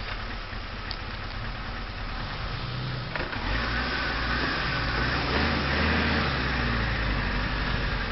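Off-road 4x4 SUV engine running under load, getting louder and working harder from about three seconds in.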